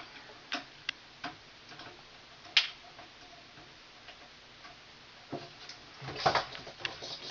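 Scattered small clicks and taps from handling a light switch and its copper ground wire as the wire is attached, with one sharper click about two and a half seconds in and a busier cluster of clicks and rustle near the end.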